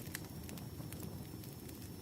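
Campfire crackling: a steady low rumble of burning with scattered, irregular sharp pops and snaps.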